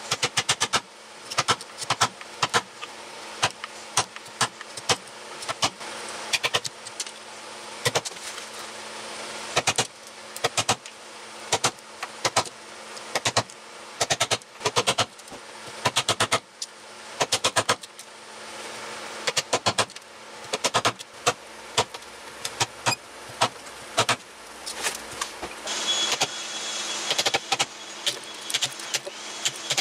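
Steel Japanese chisel driven by a hammer into a softwood timber beam, chopping out a dovetail socket: quick runs of sharp blows, several at a time, with short pauses between runs.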